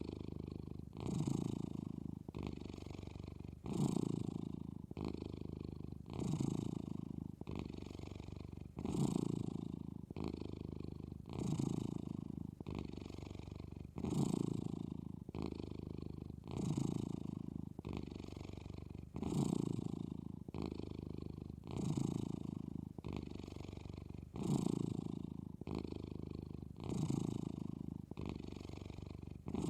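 Sleeping domestic cat snoring, a low, purr-like rasp with every breath, about one breath every two and a half seconds, each starting loud and easing off.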